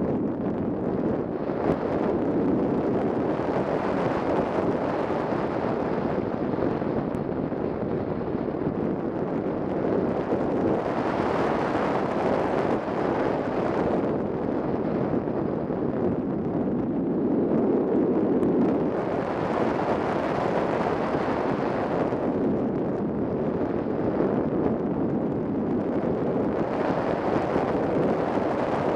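Airflow rushing over a camera mounted on a 3 m radio-controlled Ka8b scale model glider in flight, a steady wind rush with no motor heard, swelling and easing about three times as the airspeed changes.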